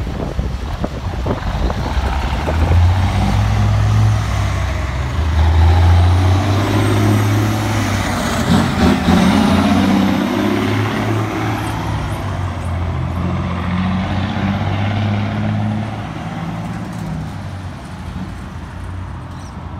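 Cummins diesel engine of a Ford LNT9000 semi truck pulling a loaded flatbed trailer, working hard under heavy throttle (rolling coal) as it accelerates away. It is loudest about halfway through, then fades as the truck moves off.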